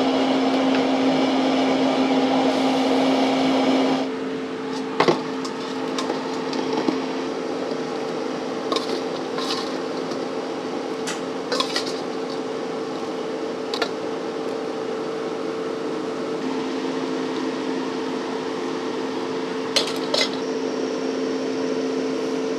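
Steady hum of kitchen machinery, louder and rushing for the first four seconds, with scattered sharp clinks of metal tongs and a metal bowl against a stainless steel stockpot.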